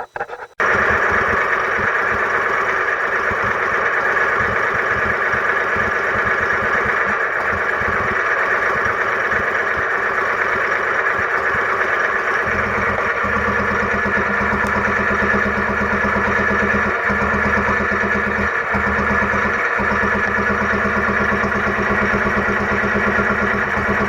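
Small Petter stationary engine running steadily. It cuts in abruptly about half a second in, with a fast, even beat in its low end.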